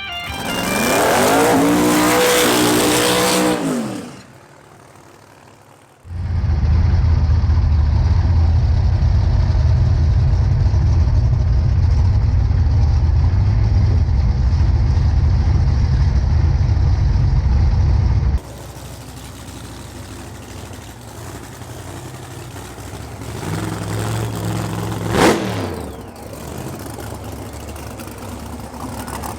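Drag-racing V8 engines in a series of cuts. First an engine revs, its pitch sweeping up and down. Then, after a short quieter gap, a loud steady run heavy in deep tones that cuts off abruptly, and near the end a quieter engine with one quick pitch sweep, as a car passes.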